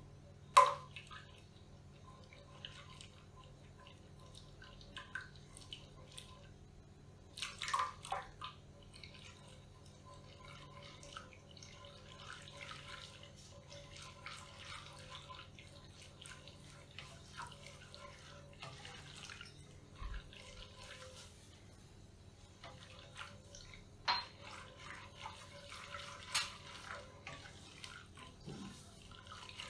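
Kitchen preparation sounds: three sharp clinks of utensils, about half a second in, around eight seconds and near the end, over faint liquid sounds that grow busier in the second half.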